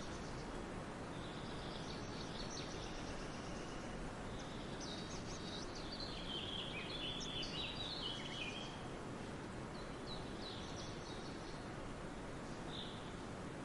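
Forest birds chirping and singing over a steady background hiss. The calls come as short high chirps and trills, thickest around the middle, with a few single chirps near the end.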